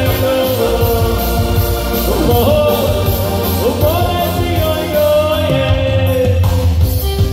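Live male vocal sung into a microphone over an electronic keyboard accompaniment from a Korg Pa-series arranger, with a steady bass and beat, played through a PA. The voice slides between notes, holds a long falling note, and drops out a little after six seconds while the band sound carries on.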